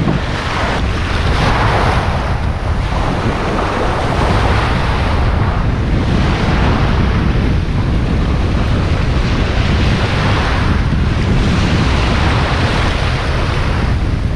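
Sea surf washing in and breaking around the feet at the waterline, swelling and easing every few seconds, with wind buffeting the microphone.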